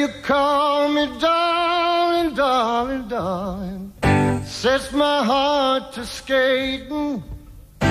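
Male singer holding long, wavering notes over sparse acoustic guitar in a live soul-country song; the guitar mostly drops out beneath the voice, with a few low chords about halfway through.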